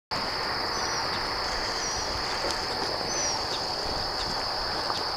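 Marsh insects shrilling in one steady, high-pitched drone, over a background hiss, with a few faint short bird chirps.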